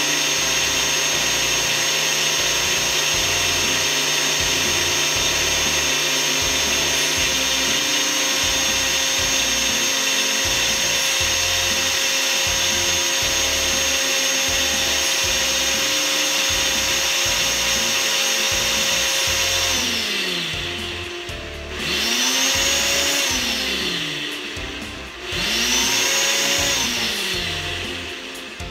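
Ninja Power Nutri Duo blender running steadily at full speed on its Extract program, blending fresh fruit, juice and ice. From about 20 seconds in, the motor winds down and spins back up again about every three seconds as the Auto IQ program pauses and restarts.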